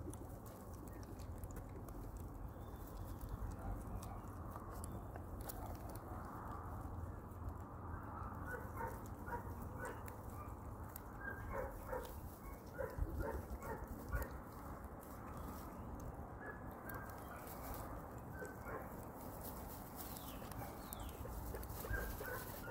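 Guinea pigs making many short squeaks, most of them from about a third of the way in, over a low steady rumble.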